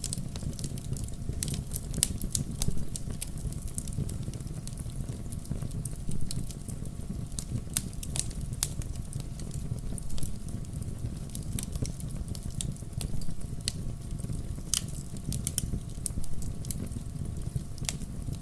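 Wood campfire burning steadily with a low rumble and irregular sharp crackles and pops of burning logs.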